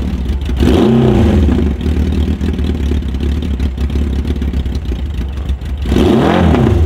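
Engine of a homemade 12-wheel amphibious ATV running steadily, revved up and back down twice: once about a second in and again near the end.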